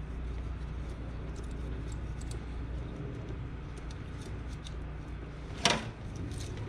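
Faint clicks of metal parts being handled at a car's brake master cylinder and brake line fitting, with one louder knock about five and a half seconds in, over a steady low hum.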